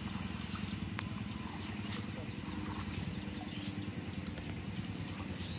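A steady low motor drone runs throughout, with short high bird chirps scattered over it.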